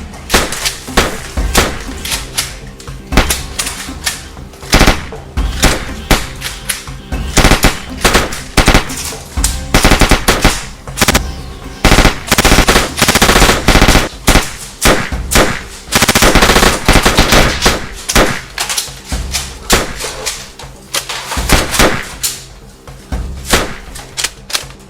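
Gunfire in a shootout: single shots and bursts of rapid automatic fire, densest and most sustained around the middle, over background music.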